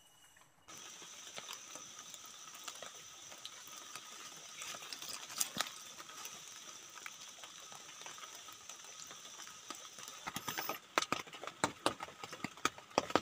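Light rain dripping and ticking irregularly on a tent, over a steady high-pitched hum; about ten seconds in the taps become louder and closer together.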